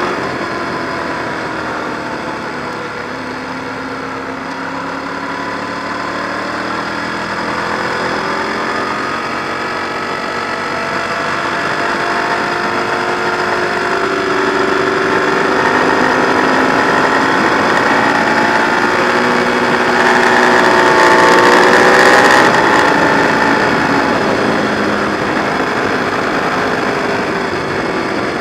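Ducati 1098's L-twin engine heard from a mount on the bike, running at moderate, gently rising and falling revs with a rush of wind noise; it is loudest about three quarters of the way through.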